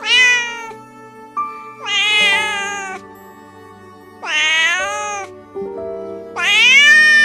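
A cat meowing four times, drawn-out high calls that rise and then fall in pitch, the last one the longest, over slow piano music.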